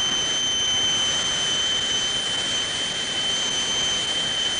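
Air-driven Hartmann-type noise generator sounding a steady, high tone of about 3 kilohertz, with a weaker overtone an octave above, over a broad rushing hiss.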